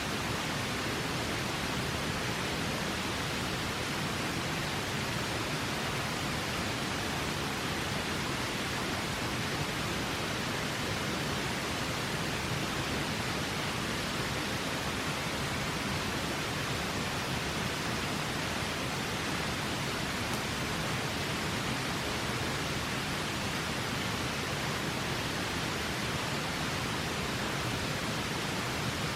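River water rushing, a steady unbroken hiss of flowing water.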